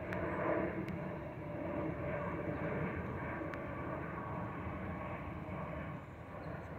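Steady engine rumble of an Airbus A320neo with Pratt & Whitney PW1127G geared turbofans flying overhead.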